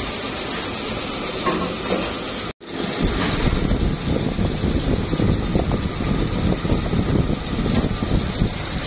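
Injection-moulding machinery running with a steady mechanical din. The sound drops out for an instant about two and a half seconds in, then comes back louder and rougher.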